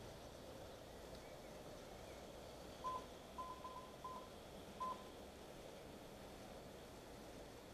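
Keypad of a self-service LPG pump's card payment terminal beeping five times in quick succession as keys are pressed, each beep short and of one pitch. A faint steady background hum sits underneath.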